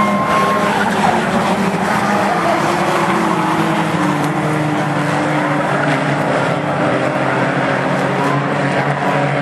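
A pack of bomber-class stock cars racing, several engines running hard together as a steady, loud din, with their pitches slowly rising and falling as the cars pass and lift.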